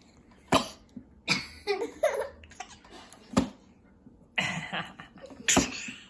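Three short, sharp coughs, with a baby's babbling and giggling vocal sounds between them.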